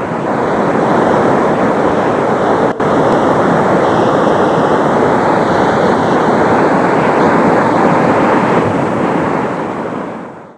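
Rocky stream rushing over boulders and through rapids: a loud, steady rush of white water. It drops out for an instant about three seconds in and fades away near the end.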